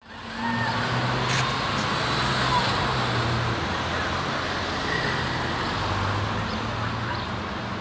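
Cars passing on a city street: steady traffic noise of engines and tyres on the road.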